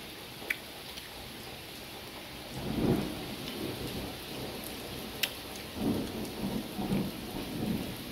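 Steady rain during a thunderstorm, with thunder rumbling low, swelling about three seconds in and again through the second half. Two brief sharp clicks stand out over it.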